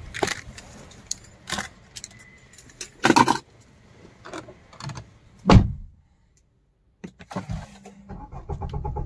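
Keys jangling and clicking in a car cabin, with a heavy thump about five and a half seconds in. At the very end the 2015 Maruti Suzuki Swift ZDI's 1.3-litre four-cylinder diesel is started with the push-start button and settles into a steady run.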